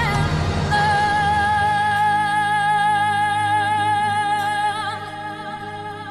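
Music with singing: a singer holds one long high note with vibrato, then the music fades lower near the end.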